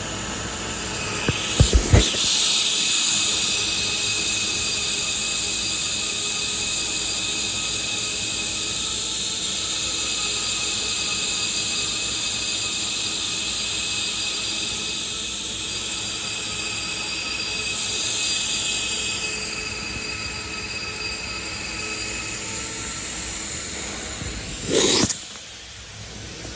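Welding arc hissing steadily for about 18 seconds, starting after a few sharp clicks, then dropping to a softer hiss. A short loud sweeping sound comes near the end.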